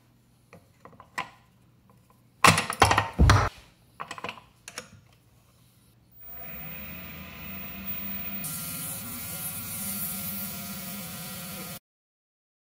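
Clicks and a burst of loud knocks as a yew blank is fitted and clamped in a metal four-jaw lathe chuck. Then a steady machine hum starts, gains a hiss partway through, and cuts off suddenly.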